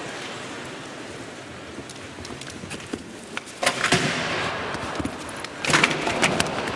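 Show-jumping rails knocked off fences twice, clattering down onto the arena floor about 4 and 6 seconds in, each time followed by a brief swell of crowd reaction.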